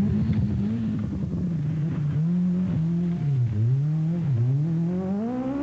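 Peugeot 205 Turbo 16 rally car's turbocharged four-cylinder engine revving hard at full stage speed. Its pitch rises and falls through the gears, dipping twice near the middle and then climbing steadily toward the end.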